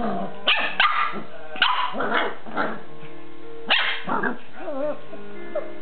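Puppy barking and yapping, a run of about eight short high barks spaced irregularly, some with a wavering yelp.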